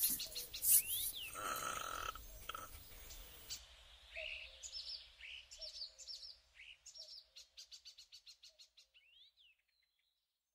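Birds chirping, with short rising calls and quick trills, fading out steadily until they stop near the end.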